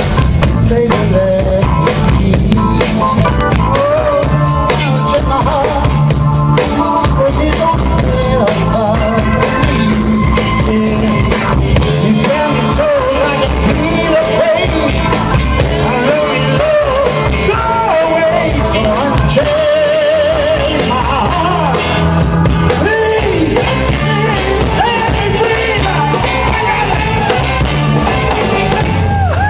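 Live rock band playing: drum kit, electric guitars and bass keep a steady beat under a wavering lead melody with vibrato.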